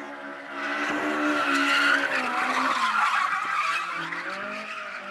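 A car engine held high in the revs while the tyres squeal as the car slides through a corner; the engine note dips about three seconds in and then climbs again.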